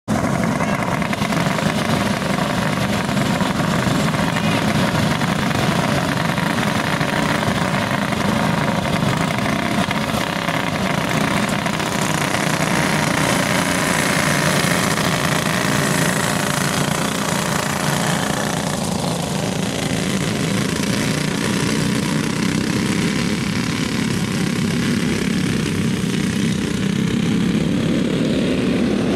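A field of racing go-karts' small engines running at speed on a dirt oval, a steady engine drone that thins out about two-thirds of the way in as the pack moves away down the far side.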